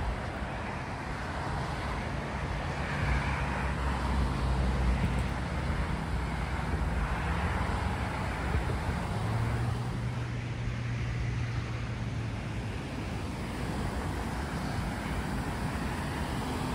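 Road traffic: several cars pass one after another on a nearby two-lane road, their tyre noise swelling and fading, with a low engine hum as each goes by.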